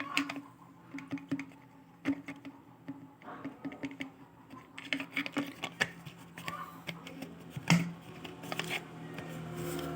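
Irregular small clicks, taps and scratches of hand tools working on an opened mobile phone's charging connector area as it is cleaned, over a low steady hum that grows louder near the end.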